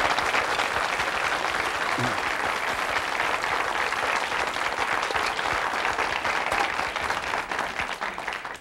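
Crisp rice crust (sizzling rice) crackling and sizzling as hot seafood and sauce are poured onto it: a dense, continuous crackle, like applause, that fades near the end.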